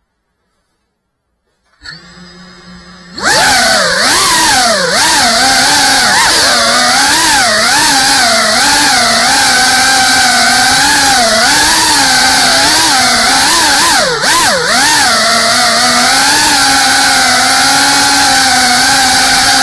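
Near silence, then about two seconds in the GEPRC Cinelog 35 FPV drone's motors spin up to a quiet idle whine. A second later they throttle up to a loud buzzing whine whose pitch keeps rising and falling with the throttle as the quad flies.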